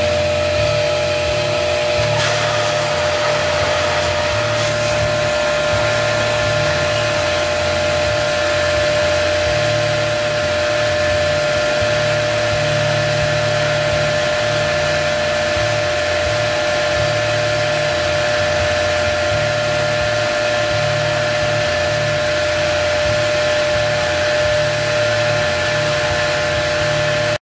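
A motor running steadily, with a constant hum and an even rushing noise. The sound cuts off abruptly near the end.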